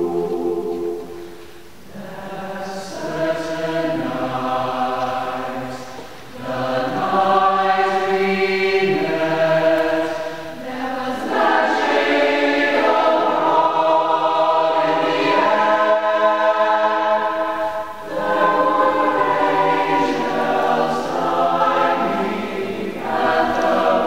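Mixed choir of men's and women's voices singing a cappella, holding chords in long phrases with short breaks for breath about two, six and eighteen seconds in.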